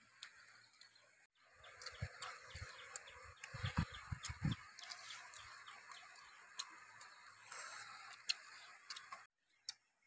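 Cooked river snails being eaten by hand: shell clicks and a cluster of low knocks about three and a half to four and a half seconds in, over steady outdoor bird chatter with a run of quick, evenly spaced ticks.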